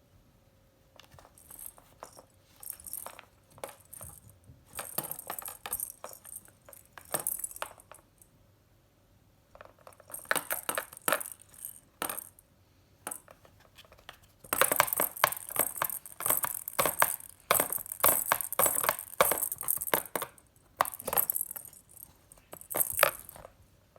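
Metal jingling and clinking from a cat toy being batted and mouthed, coming in repeated bursts of rapid clicks with short pauses between them.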